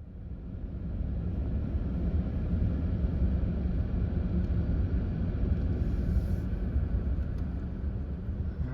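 Car driving: a steady low rumble of road and engine noise that starts abruptly and holds evenly.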